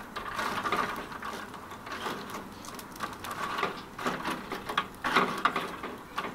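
Metal tongs raking and spreading lit charcoal across a barbecue grill's firebox: irregular scrapes and clinks of charcoal lumps knocking together and against the metal.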